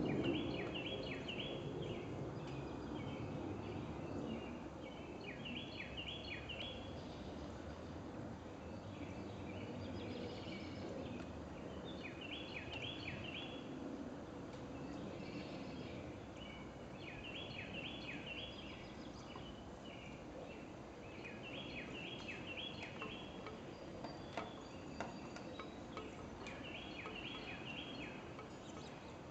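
A songbird singing a short phrase of quick, repeated down-slurred notes, about once every five seconds, over a steady background hiss. A few faint knocks come near the end.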